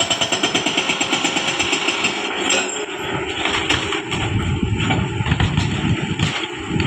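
Hitachi excavator's hydraulic rock breaker hammering rapidly, about ten blows a second, and stopping about two and a half seconds in. After that the excavator's engine runs, with irregular knocks.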